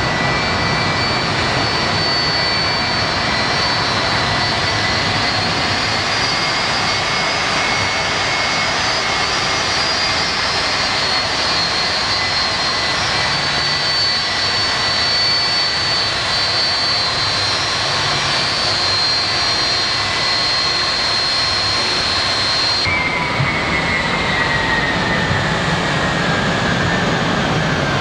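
Boeing 757 jet engines running loud and steady, with high whining tones over the roar. About 23 seconds in the sound changes abruptly, and a whine then falls slowly in pitch.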